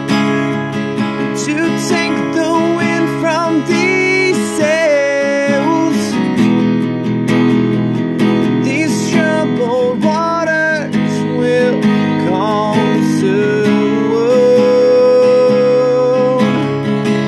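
Acoustic guitar strummed steadily with a solo singing voice over it, sung in phrases; the voice holds one long note near the end.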